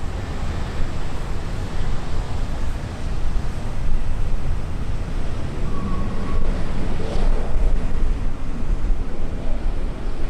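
Wind buffeting the microphone: a loud, gusting low rumble and rush.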